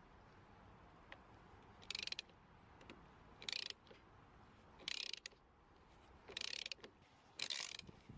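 Socket ratchet clicking in five short bursts, about one every one and a half seconds, as it turns a 15/16 socket to unscrew a plastic oil filter housing cap.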